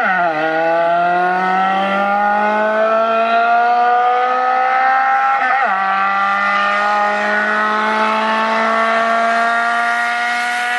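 Car engine revving high under hard acceleration, its pitch climbing slowly through each gear and dropping sharply at gear changes, once just after the start and again about halfway through.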